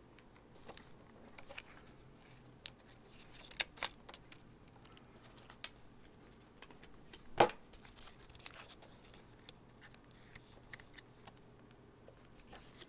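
Scattered small clicks, taps and light scrapes of tools and parts being handled while an iMac is taken apart, with one sharper click about seven seconds in the loudest.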